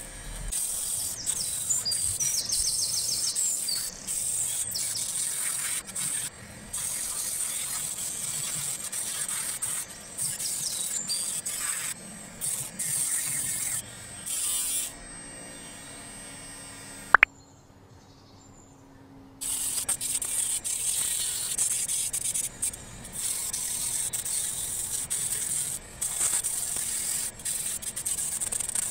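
Small DC motor spinning an abrasive disc, grinding and sanding a wooden ruler in repeated spells that start and stop abruptly. There is a sharp click about two-thirds of the way through, then a short quieter stretch before the grinding resumes.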